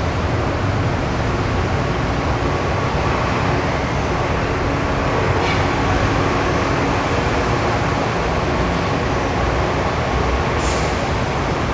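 Bombardier Innovia Monorail 300 train running past on its concrete guideway beam: a steady rushing noise from its rubber tyres with a faint steady hum.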